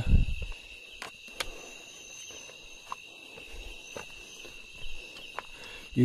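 A steady chorus of night insects, crickets, trilling in several high pitches. A few scattered sharp clicks and knocks come from footsteps and handling, with a low thump right at the start.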